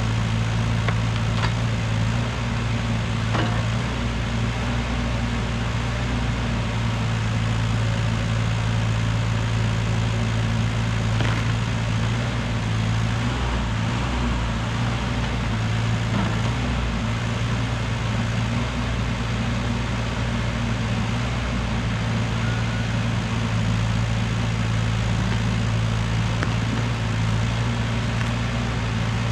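Diesel engine of a CAT 302.7D mini excavator running steadily, with a few faint knocks now and then.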